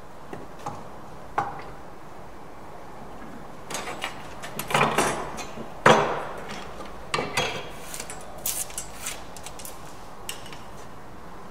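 Wooden knocks and clatter as the timber pieces of a bridle joint are handled and set down on a wooden workbench. A scatter of sharp taps, loudest in a cluster about five to six seconds in, with a few lighter knocks after.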